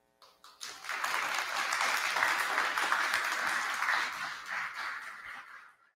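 Audience applauding: a few first claps, then full, steady applause that starts to fade near the end.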